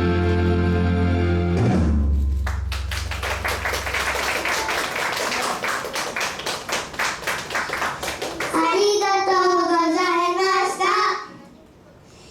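A song's backing music ends about two seconds in. Hands then clap in a steady rhythm for several seconds, and near the end a child's voice sings a drawn-out, wavering line.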